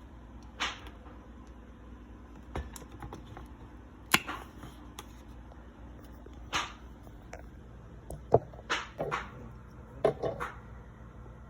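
A woman hiccuping: a short sharp 'hic' a couple of times, several seconds apart, with scattered small clicks and knocks of food preparation in between.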